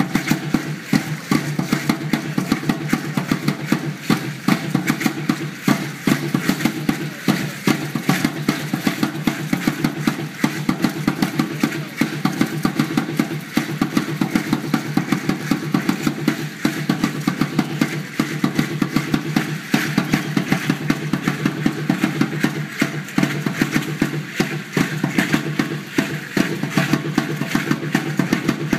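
Aztec dance drumbeat and the dancers' ayoyote seed-pod ankle rattles shaking with their stamping steps, a fast, even beat that keeps going steadily.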